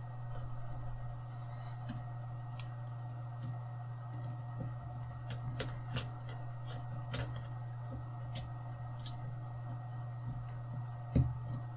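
Scattered light clicks and taps from a small screwdriver and plastic laptop parts being handled, with a louder knock near the end, over a steady low hum.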